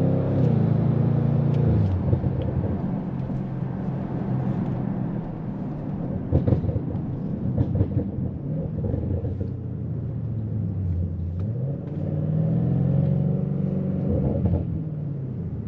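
Tuned Audi RS7 C8's twin-turbo V8 heard from inside the cabin while driving: the engine note falls in the first second, a few sharp cracks come around the middle, then the revs rise for a couple of seconds and drop again near the end.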